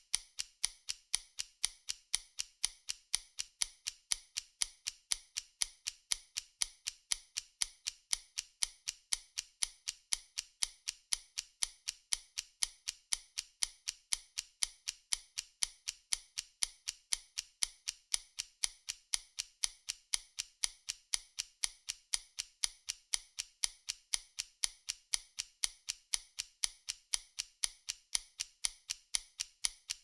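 Vintage mechanical stopwatch ticking: fast, even, crisp ticks in a steady unbroken rhythm.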